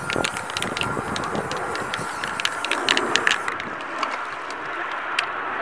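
Aerosol can of black spray paint hissing, cutting off about three and a half seconds in, with a scatter of sharp clicks during the spraying.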